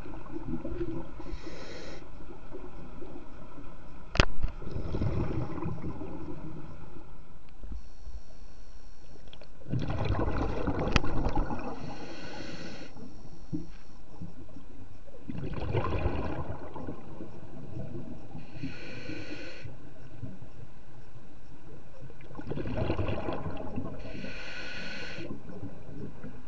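Scuba diver breathing through a regulator underwater: a hiss of inhalation and a rumbling rush of exhaled bubbles, repeating about every six to seven seconds. A sharp knock about four seconds in.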